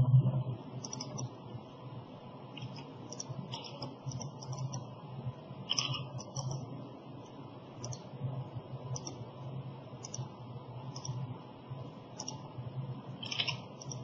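Irregular computer mouse and keyboard clicks, a few each second, over a low steady hum, with a single low thump right at the start.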